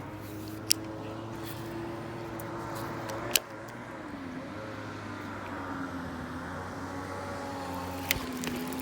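A motor drones steadily, its pitch wavering slightly up and down. Three sharp clicks or knocks sound over it, one near the start, one about a third of the way in and one near the end.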